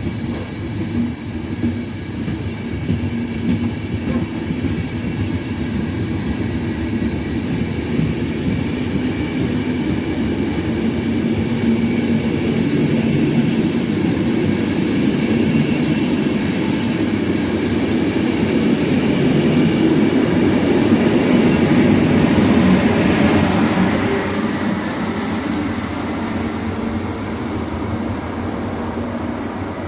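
A train running past on the track, a steady rumble that grows louder to a peak about three-quarters of the way through and then fades away, with faint steady whines above it.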